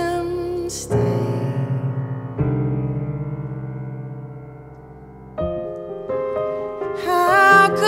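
Piano chords struck and left to ring and fade, a first pair about a second and two and a half seconds in, then fresh chords near five and a half and six seconds. A woman's sung held note ends just before the first chord, and her voice comes back in near the end.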